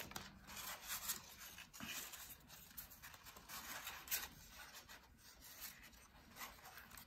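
Faint rustling and rubbing of white paper as hands handle and bend a paper cutout, in short irregular scratchy strokes.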